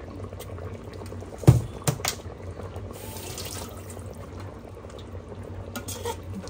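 Chicken curry gravy simmering and bubbling in an Instant Pot's steel inner pot over a steady low hum. A sharp knock comes about a second and a half in, with two lighter taps right after. Near the end a metal spoon clinks against the pot as the gravy is stirred.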